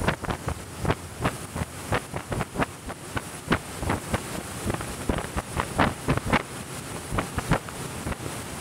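Wind buffeting the microphone over the rush of water from a boat running at speed, broken by many irregular sharp slaps, about three or four a second.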